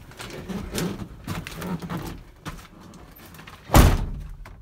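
Driver's door of a Chevrolet C4500 Kodiak truck cab shut with a single loud thud about three-quarters of the way in, after quiet shuffling as someone settles into the seat.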